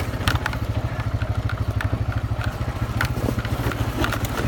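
ATV engine running steadily as the quad crawls over rocky ground, with scattered sharp clicks and knocks from the rough trail.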